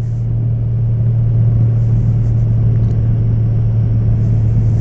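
The 2014 Honda Valkyrie's 1832cc flat-six engine running steadily at cruising speed, a low steady hum with wind and road rumble, growing a little louder over the first second or two.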